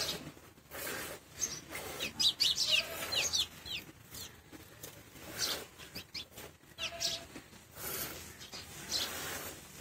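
Milk squirting in repeated short streams into a plastic bucket partly full of milk as a cow is milked by hand. Birds chirp in quick rising notes between about two and four seconds in, the loudest part.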